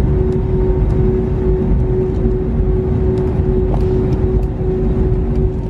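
Airliner cabin noise as the plane taxis on the tarmac: the engines run with a steady low rumble and a constant hum.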